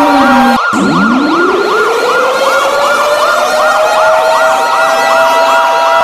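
Emergency alert siren alarm sounding loudly, made of several layered sirens: a slow wail that glides up in pitch over several seconds and restarts about half a second in, a fast warble repeating about three times a second, and a steady high tone on top.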